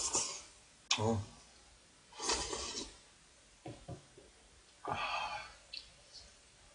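Close-up eating sounds of a man eating thick ramen noodles: several short slurps and chewing noises, with a brief voiced sound from his mouth about a second in and a few small clicks.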